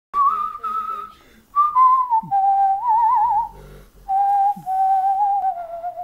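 A person whistling a short tune in three phrases, the pitch stepping downward from phrase to phrase, with a quick warbling trill in the middle.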